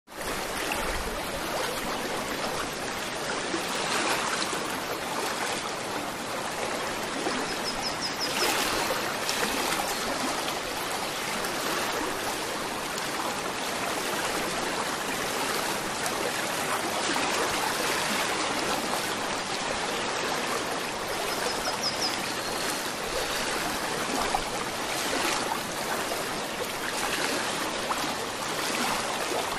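Aquarium water bubbling and trickling steadily, from an air stone's stream of rising bubbles.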